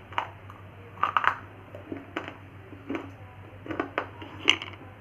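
Close-miked crunching as hard, chalky material is bitten and chewed: separate sharp crunches at roughly one a second, the loudest about four and a half seconds in.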